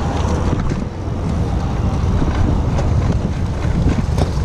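Wind buffeting the microphone of a camera on a moving bicycle, a loud steady low rumble with tyre and road noise underneath and a few faint clicks.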